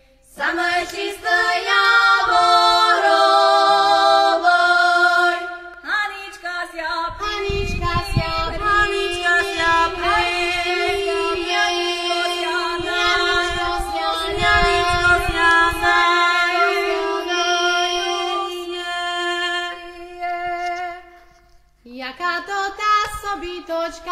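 Slovak folk song, sung by several voices with a held steady tone beneath the melody, pausing briefly about six seconds in and again near the end.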